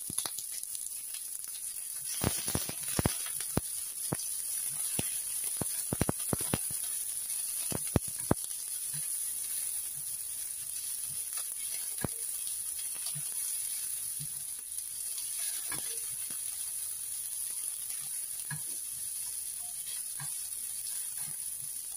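Sliced onion, shallots and garlic sizzling steadily in a little oil in a stainless-steel frying pan over a lowered flame. A spatula clicks and scrapes against the pan, often in about the first eight seconds and only now and then after that.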